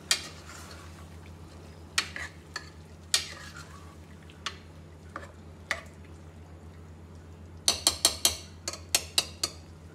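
Steel spoon stirring minced beef, onions and tomatoes in a pressure cooker, knocking and scraping against the pot in scattered single clicks, then a quick run of knocks near the end, over a faint frying sizzle.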